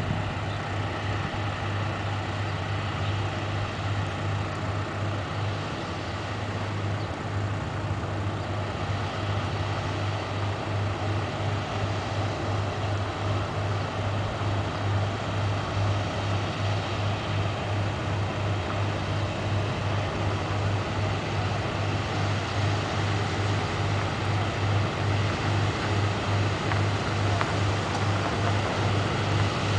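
Diesel engine of the Bac 18 river car ferry running under way, a steady low throb with a regular pulse that slowly grows louder as the ferry comes nearer.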